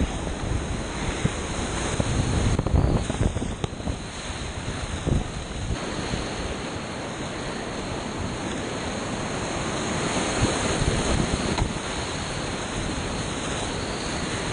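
Whitewater rapids rushing and splashing around a kayak, heard up close on a camera that is being sprayed, so the microphone buffets. The low rumble surges louder between about two and four seconds in.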